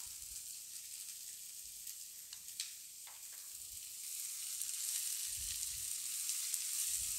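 Chopped red and yellow capsicum sizzling as it fries in oil in a pan, with a few light clicks early on. A wooden spatula then stirs it, and the sizzle grows louder about four seconds in.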